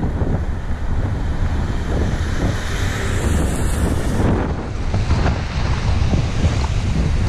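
Wind buffeting the microphone of a camera moving along, a steady low rumble with uneven gusts. A hiss rises partway through as a car passes on the wet road.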